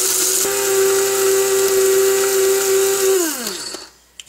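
Electric blade spice grinder running, with its lid held down, grinding roasted whole spices into a masala powder. The motor whines steadily, then is released a little after three seconds in and falls in pitch as the blade spins down, with a few small clicks near the end.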